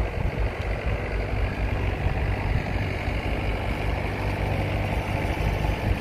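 Volvo mini excavator's diesel engine running steadily as its boom lifts and swings a heavy refrigerated truck box hanging in straps.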